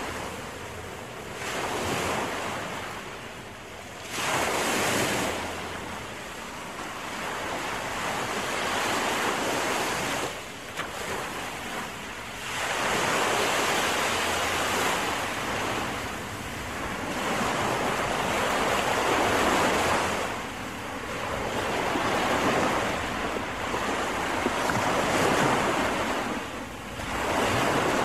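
Gusting wind, a rushing noise that swells and fades in surges every few seconds, buffeting the microphone.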